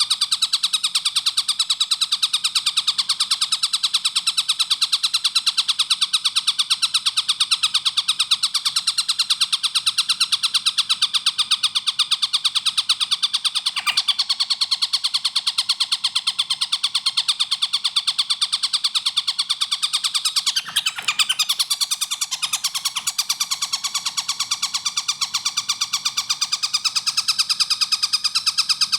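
A tengkek buto kingfisher calling in a long, unbroken run of very rapid, sharp, high notes packed tightly together. There is a brief break in the run about 21 seconds in.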